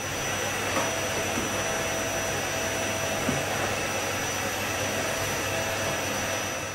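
Canister vacuum cleaner running steadily as its floor head is pushed over a rug: a steady rush of air with a thin high whine on top.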